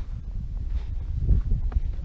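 Footsteps on a dry dirt and grass slope, with a low wind rumble on the microphone.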